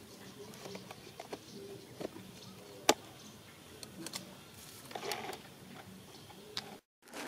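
Handling noises of bamboo poles and cord: scattered light clicks and taps, one sharp knock about three seconds in, and rustling around five seconds in. The sound drops to total silence for a moment near the end.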